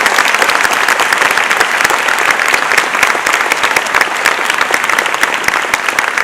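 Audience applauding: dense, loud clapping that eases slightly toward the end.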